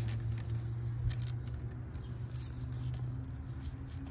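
Light, irregular metal clicks and taps from a tool working loose the clamp on a car battery's negative terminal, mostly in the first second and a half, over a steady low hum.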